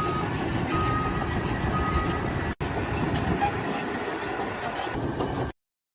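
Heavy construction machine's reversing alarm beeping about once a second over steady engine and site noise. The beeping stops about two seconds in, the engine noise carries on, and the sound cuts to dead silence near the end.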